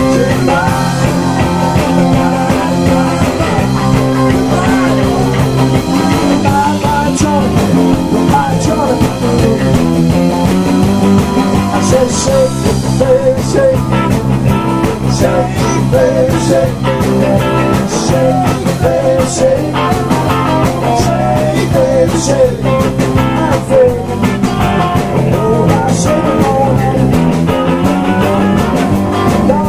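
Live rock band playing loud electric guitars over a drum kit.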